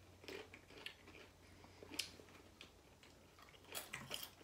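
Faint chewing of a crunchy caramel-corn and waffle-cone snack mix: soft scattered crunches, with one sharper crunch about two seconds in.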